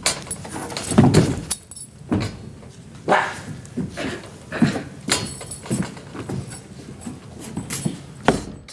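A series of short wordless vocal cries and groans, one after another, with knocks and a light metallic jangle among them.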